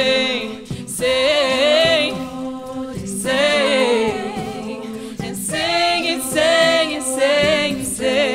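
All-female a cappella group singing: a lead voice with vibrato sings phrases of about a second each over sustained backing harmonies, with no instruments.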